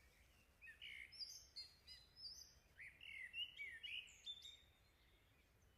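Faint background birdsong: a scatter of short, high chirps from small birds, clustered between about one and four and a half seconds in, against near silence.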